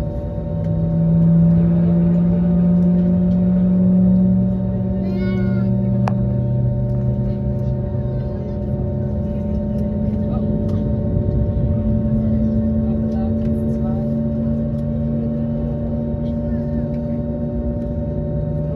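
Airbus A321neo engines running, heard from inside the passenger cabin: a steady hum with several tones, the strongest shifting in pitch and stepping up about twelve seconds in. A short high gliding cry sounds about five seconds in.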